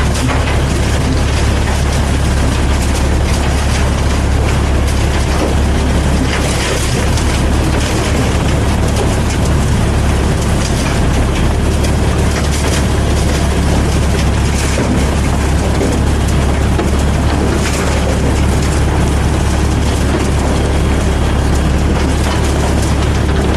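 Heavy diesel machinery running steadily through asphalt milling: a constant low engine drone under an even wash of noise.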